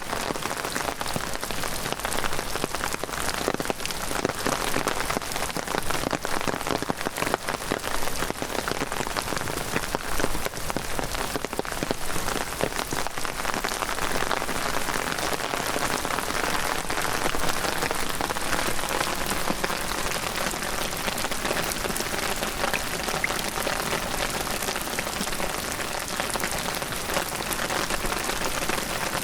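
Heavy rain falling steadily, a dense patter of countless drops hitting the ground and foliage.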